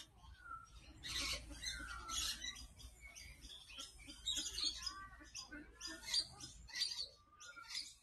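Small birds chirping and twittering, with many short, quick calls overlapping. There is a low rumble underneath.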